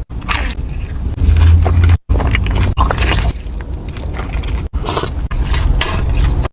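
Close-miked chewing and crunching of food, in short clips cut together: the sound drops out abruptly twice.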